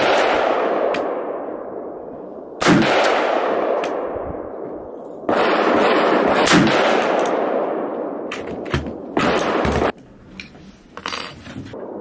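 AR-15 rifle in .223 fired in slow, deliberate single shots: three shots about two and a half seconds apart, then a fourth about nine seconds in, each followed by a long echoing tail. The last tail cuts off abruptly about ten seconds in.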